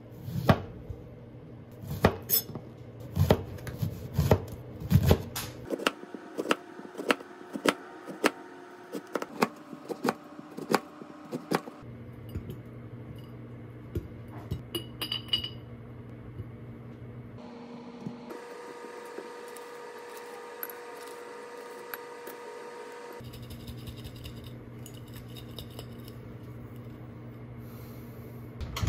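A kitchen knife slicing lemons on a plastic cutting board, a quick series of sharp chops for about the first twelve seconds, then a few light clinks as the slices go into a glass jar.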